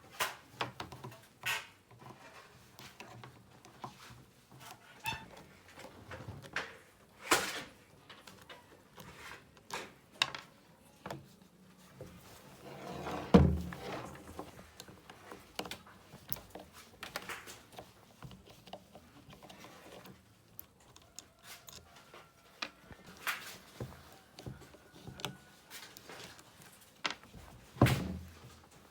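Irregular clicks, taps and knocks of tools and engine parts being handled and set down, with a heavier thump about halfway through and another near the end.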